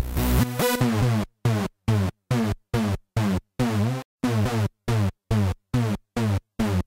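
Electronic dance track with drum machine and synthesizer. A little over a second in, it breaks into a chopped, stuttering passage: short bursts of falling synth tones cut apart by silences, about three a second.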